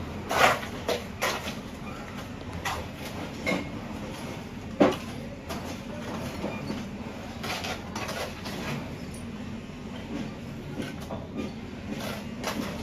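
Building work on a site: scattered, irregular knocks and clinks of tools and materials, the loudest about half a second in and again near the middle, over a steady low rumble.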